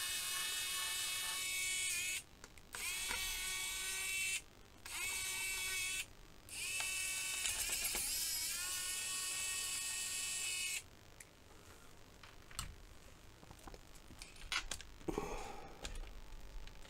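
Cordless electric precision screwdriver running with a high whine as it backs out the screws holding in a laptop battery. It runs in four spells with short pauses and stops about eleven seconds in. Light clicks and knocks follow as the battery is handled.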